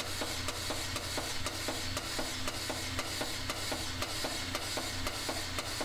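HDAS-4 air-operated sheet metal shrinker working an aluminum flange, its jaws clicking in a steady, even run.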